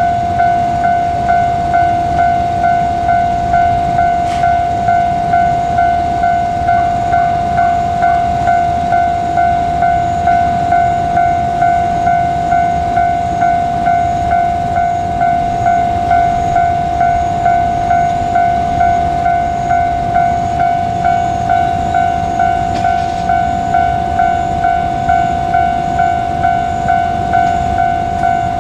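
Japanese railway level-crossing warning bell ringing steadily, an electronic ding repeating about one and a half times a second.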